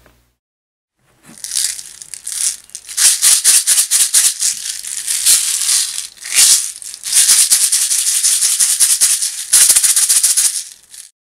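Small metal BBs rattling inside a plastic bottle shaken by hand: a dense, uneven rattle in quick bursts. It starts about a second in and stops just before the end.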